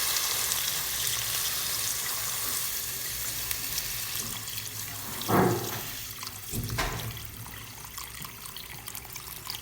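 Water poured into a hot pot of sautéed chicken, hissing and sizzling, and the noise fades gradually as the pan cools. Two brief louder knocks come about five and seven seconds in.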